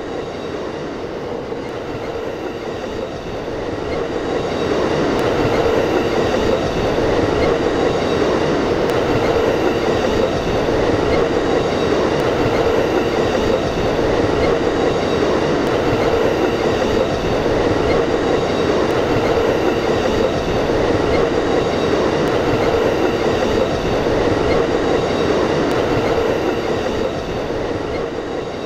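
Passenger train rolling past, a steady rumble of wheels on rail that grows louder about four seconds in and eases off near the end.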